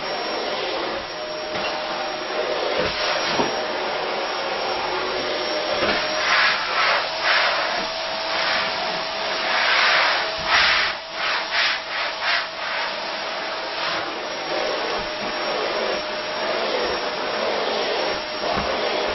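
Steady rushing noise on the camera microphone. Louder rubbing and rustling bursts come between about six and thirteen seconds in.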